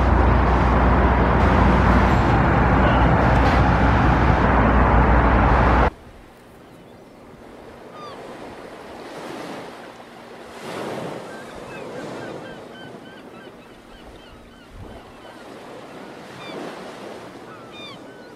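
A loud, steady rushing rumble that cuts off abruptly about six seconds in. After it comes a much quieter outdoor ambience with small birds chirping now and then.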